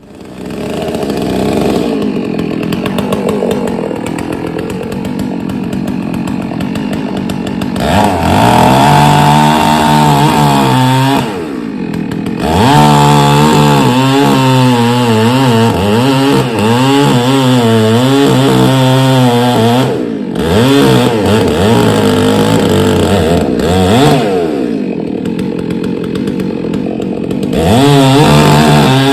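Dolmar 6800i chainsaw with a 24-inch bar, cutting ash wood. It comes up loud about a second in, then runs at high revs; the engine note sags and recovers over and over as the chain bites under load. The revs drop briefly a couple of times before it picks back up.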